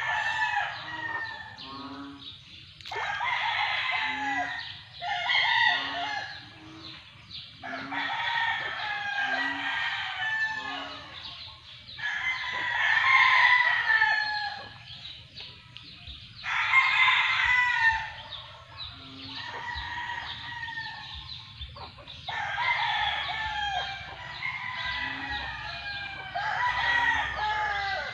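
Roosters crowing over and over, several birds overlapping, one crow every few seconds, with short low notes in between.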